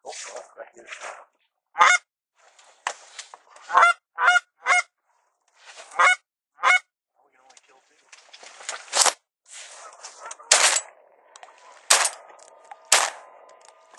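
Canada geese honking: a dozen or so short, loud honks from several birds, spaced irregularly, coming closer together in the second half as geese lift off the water.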